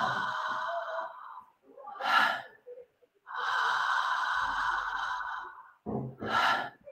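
A woman breathing audibly through an open mouth in the connected rhythm of Transformational Breath: a long, even inhale of about two seconds, then a short, relaxed exhale, twice over with no pause between breaths.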